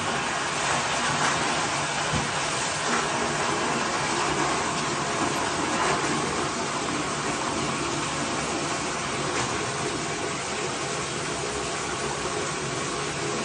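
Bathtub tap running, a steady rush of water pouring out.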